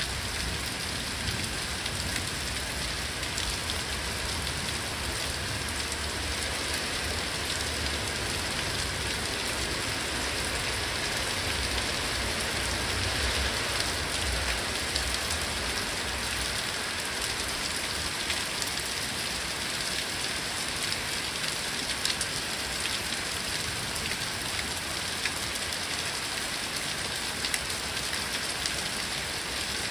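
Steady downpour of rain pattering on tree leaves during a thunderstorm, an even hiss with a low rumble underneath through the first half.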